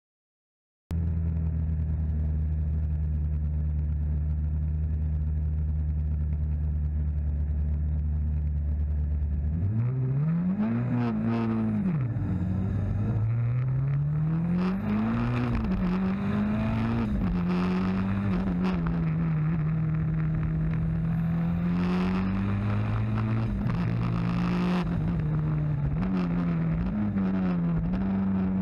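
Race car engine idling steadily, then pulling away about ten seconds in and driving hard uphill. Its pitch climbs and drops again and again with each gear change and corner, heard from on board the car.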